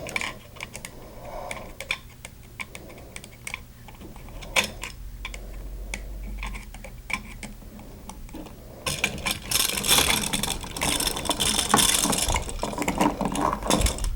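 Small clicks and scrapes of hand tools and copper wire being handled at a wall switch's screw terminals as a wire loop is moved and shaped. Scattered single clicks turn about nine seconds in into denser, louder scraping and rattling.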